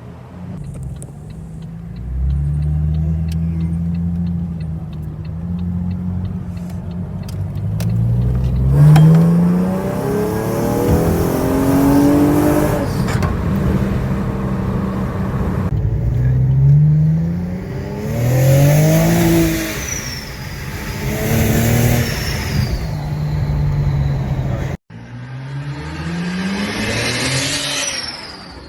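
A car's V6 engine runs steadily, then accelerates again and again, its pitch climbing and dropping back as it shifts up through the gears. The sound breaks off suddenly a few seconds before the end, then the acceleration carries on.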